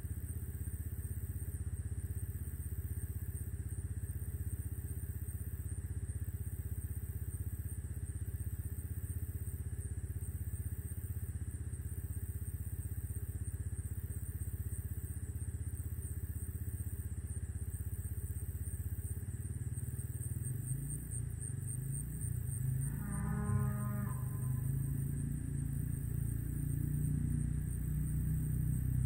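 A cow moos once, briefly, about three-quarters of the way in, over a steady low rumble and a steady high-pitched buzz.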